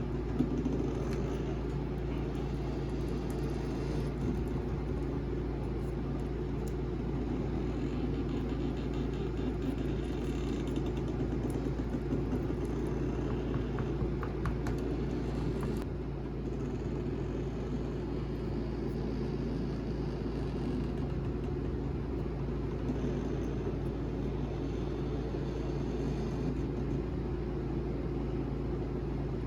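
Steady machine hum with a few constant tones, with faint light ticks and scraping over it in the first half.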